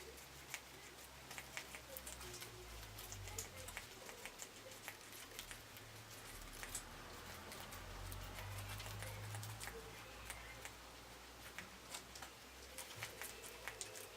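Guinea pig moving about in its enclosure: faint, scattered small clicks and rustles over a low rumble.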